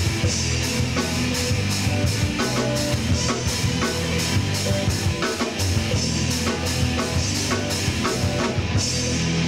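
Live rock band playing an instrumental passage: heavy electric guitar and bass over a drum kit keeping a steady beat on the cymbals.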